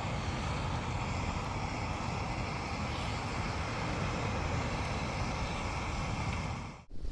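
Camping stove burner hissing steadily under a pan of bubbling korma, cutting off abruptly near the end.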